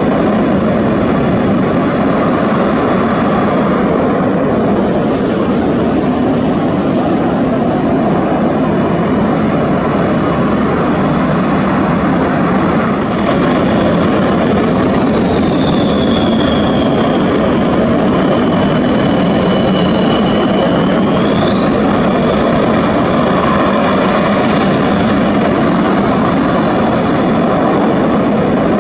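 MiG-29 fighter jets' RD-33 turbofan engines making a loud, steady roar. A high whistle from the engines dips in pitch about halfway through, then rises again and fades.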